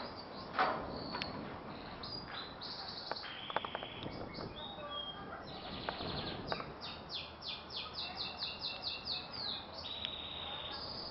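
Small birds chirping and singing, with a quick run of short, repeated, falling whistled notes, about four a second, in the second half. A few sharp clicks sound a little over three seconds in.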